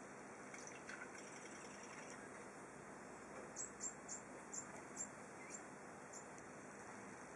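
A small bird chirping faintly: a quick series of about eight short, very high chirps midway through, over a steady background hiss.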